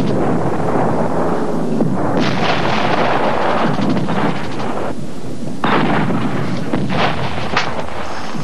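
Battle noise of gunfire and shellfire: a continuous heavy rumble, with sharp gunshot cracks several times in the second half.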